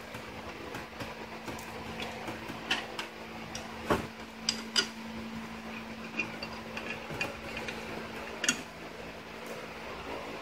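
Scattered light metal clicks and clinks of motor parts and bolts being handled and fitted, a few sharper knocks among them, over a steady low hum.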